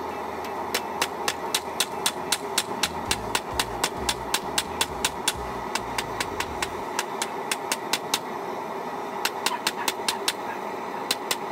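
Hand hammer striking a red-hot railroad spike on a steel anvil, about three to four blows a second, as the spike's end is forged flat into a knife blade. The blows pause briefly about two-thirds of the way through, then resume.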